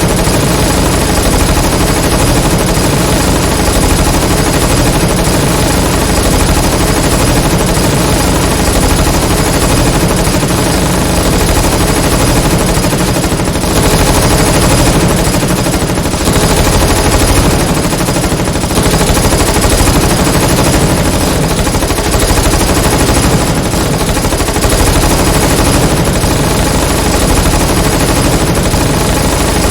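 Dense, continuous automatic gunfire from several submachine guns firing at once, a steady battle din with no pauses.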